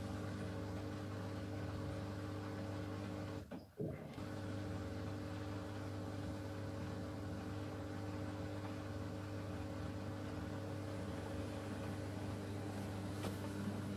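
Miele W1 front-loading washing machine running with a steady mechanical hum, which cuts out briefly about four seconds in and then carries on.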